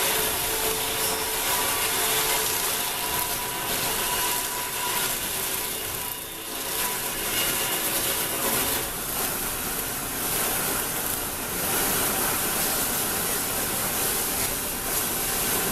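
Woodworking machinery running: a steady mechanical noise with a faint hum, dipping briefly about six seconds in.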